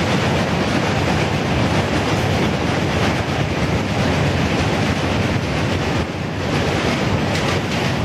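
Loaded freight wagons rolling across a steel truss railway bridge, making a steady, loud rumble as the tail of the train passes.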